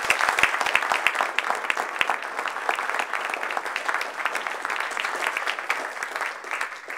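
Audience applauding, a dense, steady run of clapping that dies away near the end.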